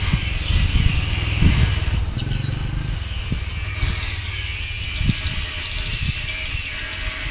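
Volvo six-cylinder diesel engine being turned over by its starter: a low, uneven rumble that is strongest for the first three seconds or so and then eases off, with a hiss above it.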